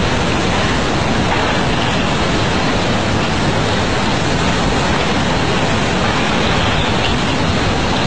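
Tsunami floodwater surging inland with debris: a loud, steady rushing noise that does not let up.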